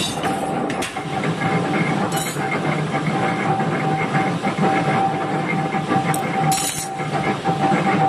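J23-80 open-back mechanical power press running: a steady machine hum with a constant whine, a few sharp clicks at the start and two short hissing bursts, one about two seconds in and one near the end.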